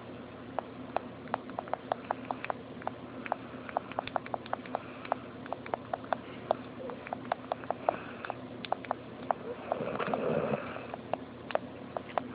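A sleeper snoring, with a run of sharp, irregular clicks, several a second, and one longer snoring breath about ten seconds in, over a steady low hum.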